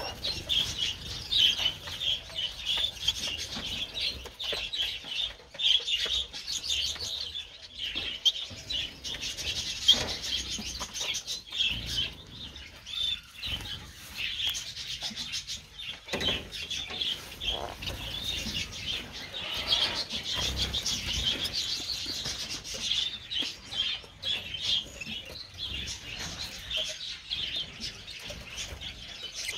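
A flock of small aviary birds, budgies and finches, chirping and chattering in a dense, continuous stream of short high calls.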